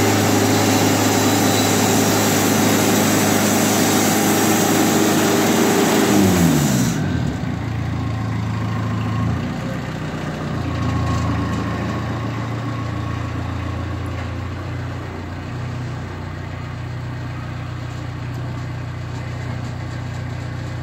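Wood-Mizer LT40 portable band sawmill running at full speed with its band blade sawing a cherry log. About seven seconds in, the engine's pitch falls as the blade stops and the engine drops to a steady idle.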